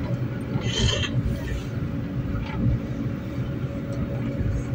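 A 71-911E "City Star" tram running: a steady low rumble with a steady mid-pitched hum, and a short high hiss about a second in.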